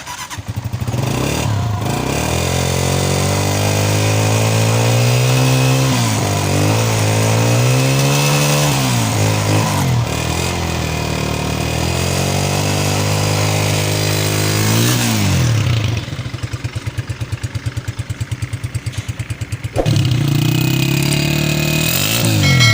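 Honda CG125 single-cylinder four-stroke motorcycle engine running and being revved up and down several times. About 16 s in it drops to an idle with an even putting beat, then picks up again just before the end.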